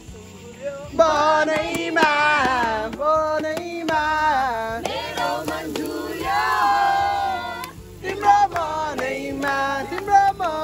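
A song with loud singing voices and music.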